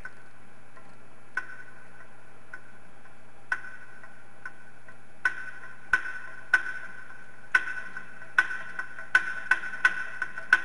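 Sharp, irregular ticks, a few at first and more and more often toward the end, each ringing briefly, over a steady faint hum.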